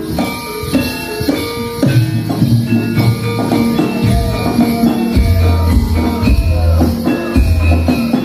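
Live topeng ireng dance music: drums and gamelan-style pitched percussion playing a steady beat, with jingling bells. Deep low notes come in about five seconds in and are held in stretches.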